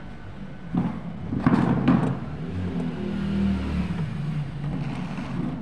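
Lift mechanism and doors: a few sharp knocks about one to two seconds in, then a low mechanical rumble that swells and fades.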